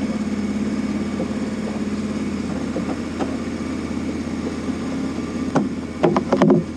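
The paintball tank's vehicle engine idling steadily, heard from inside the tank. A few sharp knocks come about five and a half seconds in, then a louder clatter of knocks shortly before the end.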